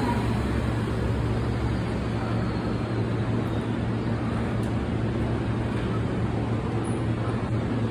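Electric train at a station platform, a steady low hum and rumble that holds even throughout.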